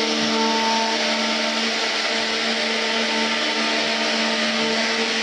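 A 3-axis CNC router's spindle running steadily as its bit carves wood: a steady whine of several tones over the hiss of cutting.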